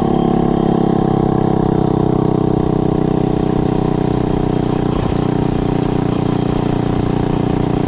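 Mega Moto minibike's small single-cylinder engine running at a steady speed while being ridden.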